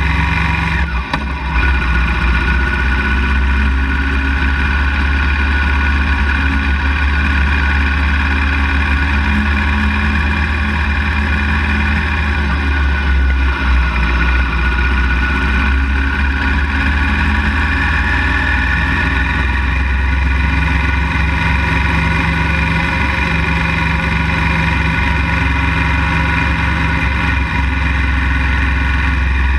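Motorcycle engine running at a steady, low road speed, heard from the bike itself, with a brief dip in level about a second in.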